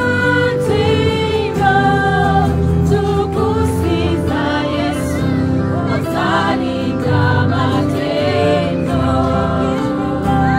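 A choir singing gospel music over sustained instrumental accompaniment.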